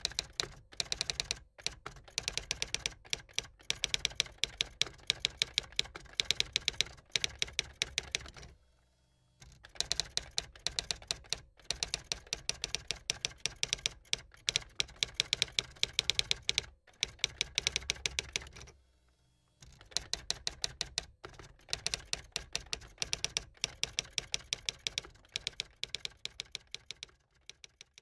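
Manual typewriter being typed on in fast runs of key strikes, broken by two short pauses, about a third and two thirds of the way through, and stopping just before the end.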